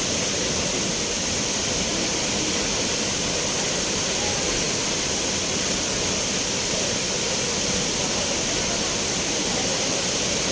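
Spring water flowing in a steady, unbroken rush.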